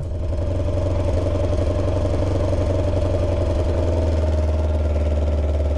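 Kawasaki Ninja 300's parallel-twin engine running steadily at a constant speed.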